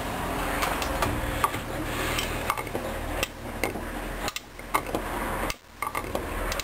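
Hoover Dyn 10124 DP washing machine tumbling a load of jackets during a rinse: a steady motor hum with irregular clicks and knocks from the turning drum. The sound drops out briefly twice, near four and five and a half seconds in.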